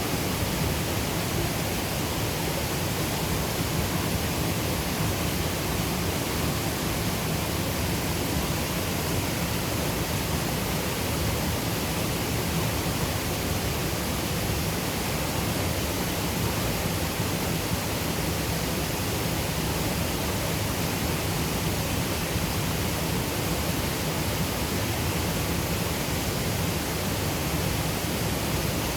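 Water of Nevis rushing over a waterfall: a steady, full roar of falling water with no change.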